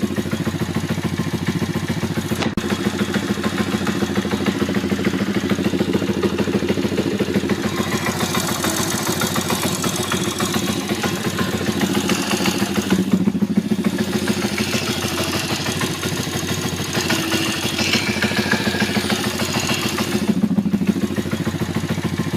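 Yinxiang YX140 single-cylinder four-stroke engine of a Kayo pit bike idling at very low revs, with a knock from the right-hand clutch side: an extra noise that appears only at very low revs and is gone when the revs are raised.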